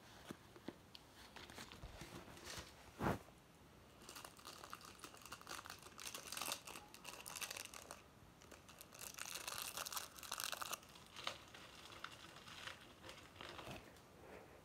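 A bag rustling and crinkling in irregular bursts as small items are put back into it, with a single sharp knock about three seconds in.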